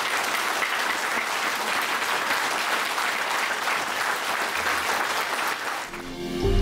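A large audience applauding, steady dense clapping that dies away about six seconds in.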